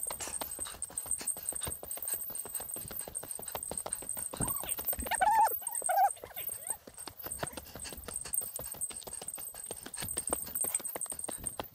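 A hiker's footsteps, a steady run of crunching steps on a mountain track. About halfway through, a short wavering pitched call rises over the steps for under two seconds.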